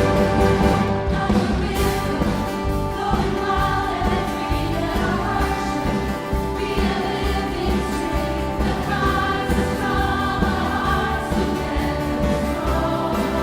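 Large church choir singing in full harmony with orchestral accompaniment, continuous and steady in volume.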